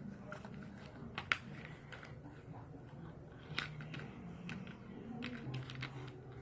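Hands squishing and poking blue fluffy slime, giving irregular sticky clicks and small pops, with a sharper pop about a second in and another near the middle.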